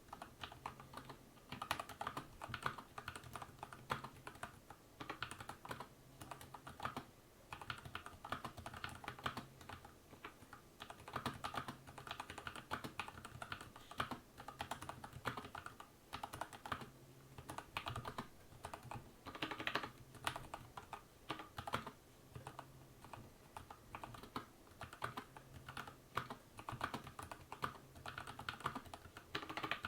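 Akko 3098 Matcha Red Bean mechanical keyboard with stock prelubed Gateron Yellow switches being typed on continuously: quick runs of keystroke clacks with brief pauses between bursts.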